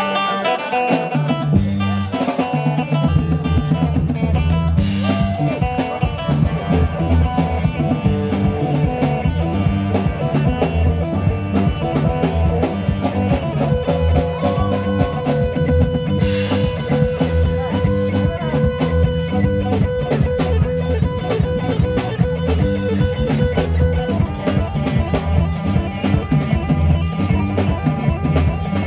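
Live band playing: electric guitar, bass guitar and drum kit in a steady groove, the bass and drums coming in about a second in.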